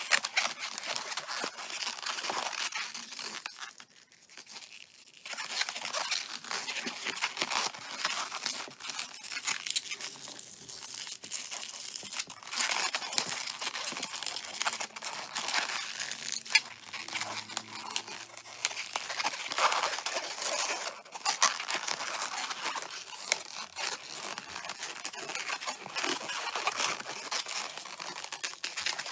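Green 260Q latex modelling balloon rubbing and crackling under the fingers as it is twisted and squeezed into segments, with a short lull about four seconds in.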